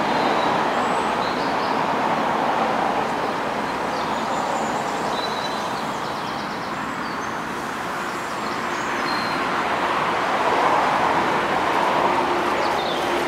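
Steady outdoor rushing noise that eases a little about midway and swells again, with a few faint high chirps of small birds.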